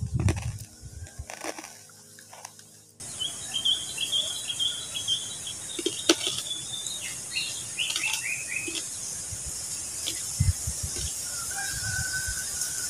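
Birds chirping over a steady high insect drone. Outdoor sound starts suddenly about three seconds in, with a run of quick chirps over the next several seconds and one longer, even call near the end, along with a few low thumps.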